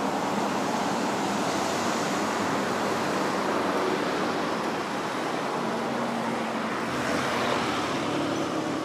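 Steady road-traffic noise from cars and a small van driving past, with a faint engine hum now and then.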